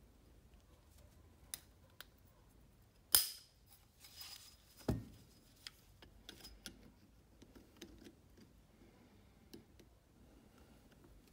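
Retaining-ring tool clicking and scraping against an old piston as the piston-pin retaining ring is worked out of its groove. There is a sharp metallic click with a brief ring about three seconds in, then a scrape and a dull knock, and light clicks after.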